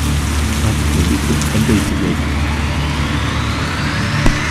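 Rain falling over a low, steady drone, with a rising whoosh that climbs in pitch from about halfway through. A single sharp click comes near the end.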